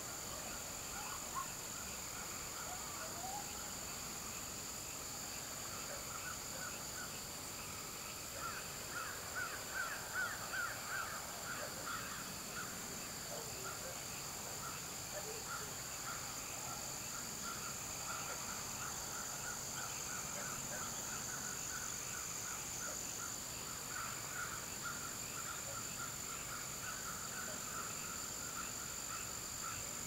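Evening chorus of frogs and insects: a steady high-pitched insect drone under frogs calling in fast repeated pulses, the frog calls loudest about a third of the way in and carrying on more softly after that.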